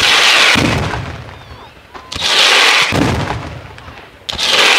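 Bolognese battery fireworks firing from the ground: three loud volleys about two seconds apart, each a sudden crack with a hissing, rumbling tail that fades away.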